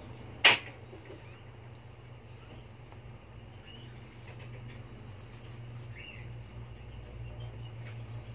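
One sharp click about half a second in, the loudest sound. It sits over a steady low hum and faint, high, short chirps.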